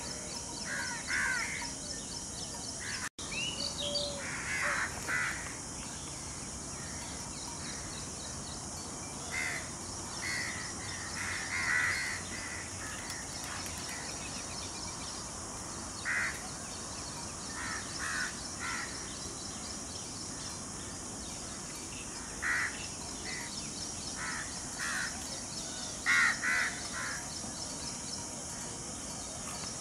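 Birds calling outdoors: short calls in twos and threes every few seconds, over a steady high hiss. The sound drops out for an instant about three seconds in.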